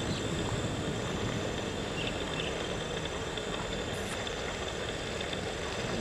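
Safari jeeps' engines running as they drive slowly along a muddy forest track, a steady low rumble.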